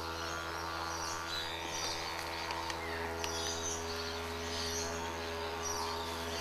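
Background music built on a steady didgeridoo drone that holds one pitch throughout, with short bird chirps over it.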